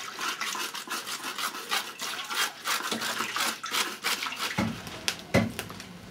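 Quick repeated scraping strokes, about three to four a second, with a few heavier knocks near the end.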